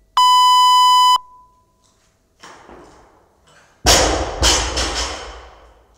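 Workout timer's long start beep, about a second long, right after the countdown beeps. About three seconds later a barbell loaded with bumper plates crashes and clatters, two hits about half a second apart with the plates ringing on.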